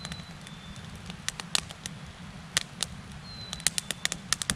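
Brush-pile fire of cut branches and log rounds crackling, with irregular sharp pops that come thicker near the end.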